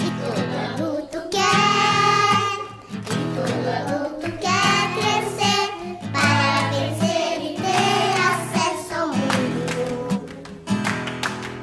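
A children's song: a voice singing over a strummed acoustic guitar backing.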